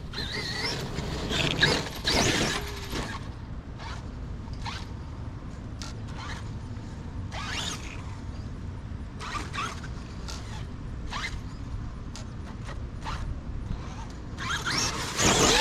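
Scattered rustling and clicks over a steady low rumble, busiest in the first few seconds and building again near the end.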